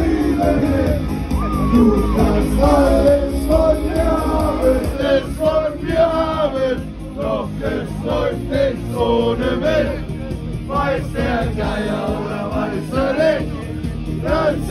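Karaoke: amateur singing into a microphone over a loud backing track through a PA, with crowd voices joining in.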